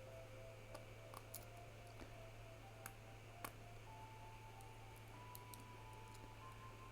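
Faint, scattered small clicks of 3D-printed plastic being handled and picked off its print raft, over a low steady hum.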